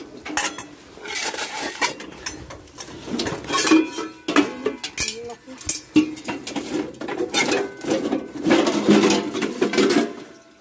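Discarded stainless-steel pots and kettles clanking and clinking against each other as they are handled, many short knocks in quick, uneven succession.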